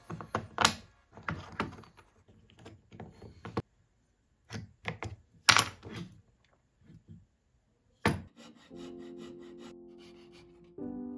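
Wooden parts of a handmade router plane being handled, rubbed and knocked against each other in irregular strokes, with a sharp click at about eight seconds. Near the end a hand fret saw cuts into the wooden base with quick strokes, about five a second, over soft piano music.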